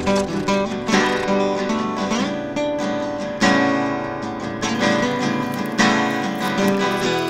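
Background music: strummed acoustic guitar playing a steady run of chords.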